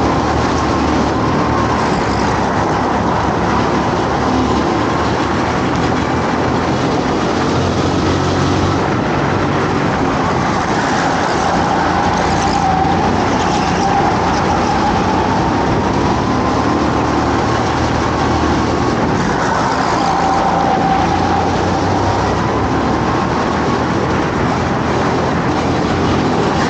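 Go-kart engine running at racing speed, its pitch rising and falling again and again as it speeds up and slows down.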